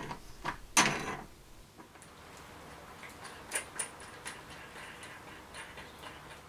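Sparse small clicks and light knocks of a nut and bolt being handled and turned against an aluminium bracket, with a couple of louder knocks in the first second.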